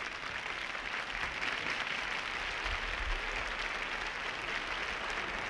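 Studio audience of adults and children applauding steadily.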